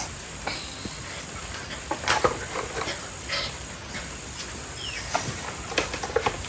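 Small dog whining and yelping in a few short, scattered cries.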